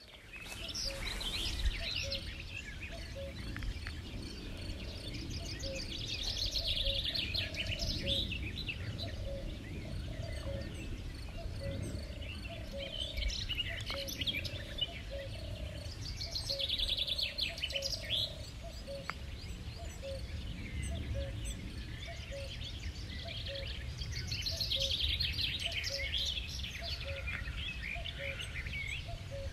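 Wild birdsong: a songbird repeats a short, trilling phrase of about two seconds every few seconds, while another bird gives a low two-note call about once a second, over the steady low rush of a stream.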